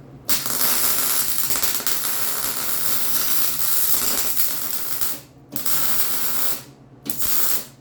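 MIG welder crackling as it fills an old bolt hole in a frame, with aluminum clamped behind the hole as a backing plate. It comes in three bursts: one long run of about five seconds, then two short ones, over a steady low hum.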